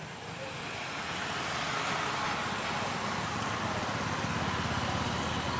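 Motorcycle engine running, its sound swelling over the first two seconds and then holding steady.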